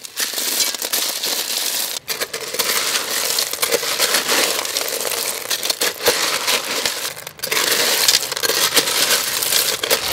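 Tiny sea snails tipped into hot, steaming curry sauce and stirred with a ladle: a dense crackling sizzle with shells clattering against each other and the pot, broken by two brief dips.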